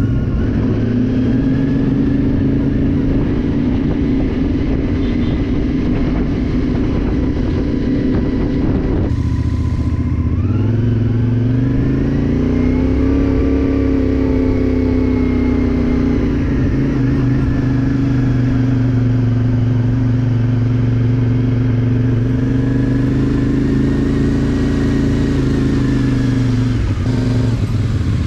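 Motorcycle engine running while riding, its pitch dropping about nine seconds in, then climbing as it accelerates, holding steady, and falling again near the end.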